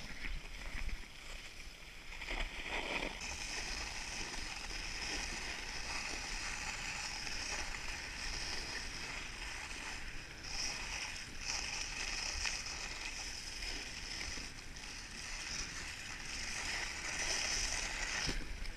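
Dog sled runners hissing steadily over snow as the husky team pulls the sled along.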